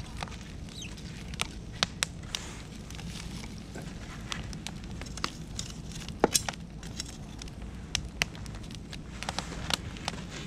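Beech and oak firewood burning in an open bonfire, crackling with irregular sharp pops over a low steady rumble; a cluster of the loudest pops comes about six seconds in.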